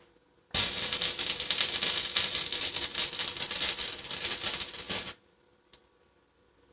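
Homemade lathe cutting: a dense, scratchy rattling noise for about four and a half seconds, starting and stopping abruptly, over a faint steady motor hum.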